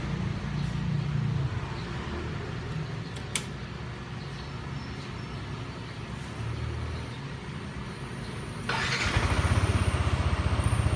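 Yamaha NMAX scooter's single-cylinder engine starting near the end and settling into an even, pulsing idle. Before that, a low rumble with a single sharp click.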